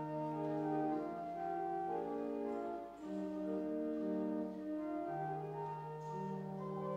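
Organ playing slow, sustained chords, with a brief break between phrases about three seconds in.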